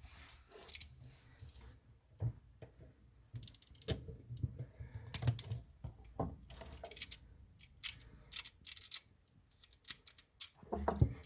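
Irregular small clicks and taps from handling a plastic GFCI outlet and pushing wires into its terminals.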